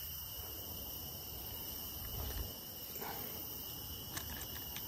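Steady, high-pitched night chorus of crickets and other insects trilling without a break, with a few faint clicks near the end.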